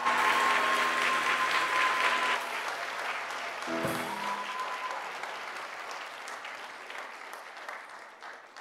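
Audience applauding, fading away toward the end. A last held musical chord rings under the clapping for the first two seconds or so, and there is a single knock a little under four seconds in.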